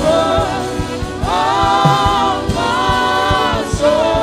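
Gospel worship song: voices singing long held notes with vibrato, phrase after phrase, over a steady beat.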